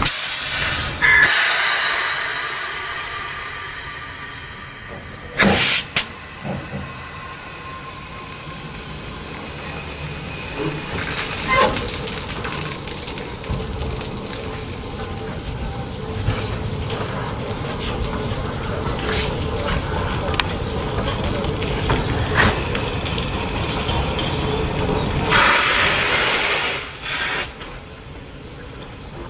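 C11 steam locomotive standing in steam and hissing: a loud release of hissing steam at the start and again near the end, and one short loud burst about five seconds in, with lower steady hissing and faint mechanical sounds between.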